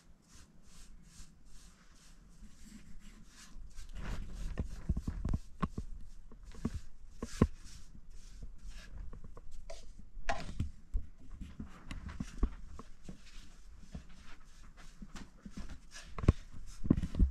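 Paintbrush strokes scratching across a metal door in quick repeated passes, with handling noise and scattered knocks and taps of the brush and paint can against the door.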